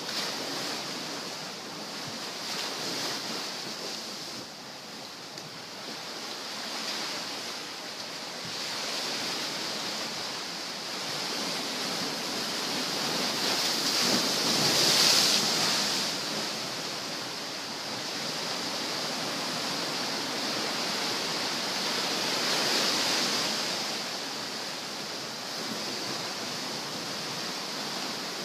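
Surf breaking and washing up the shore, a steady rushing hiss that swells and fades with the waves, loudest about halfway through and again a little later.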